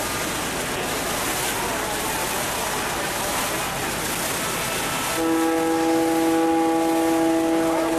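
A steady rushing noise out on the water. About five seconds in, a boat's horn sounds one long, steady blast that is still going at the end.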